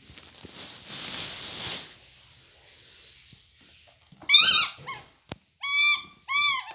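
Squeaky rubber toy ball being squeezed: three loud, high squeaks, each rising then falling in pitch, starting about four seconds in, after soft rustling.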